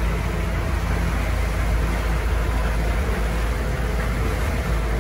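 Steady wind noise on the microphone over water rushing past a sailboat's hull while it is under way.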